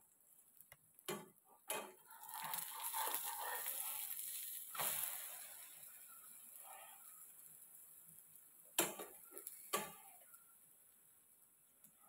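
Metal spatula clicking against a frying pan as an egg omelette is turned over, followed by frying sizzle that swells for a few seconds and then fades. Two sharp taps of the spatula on the pan near the end.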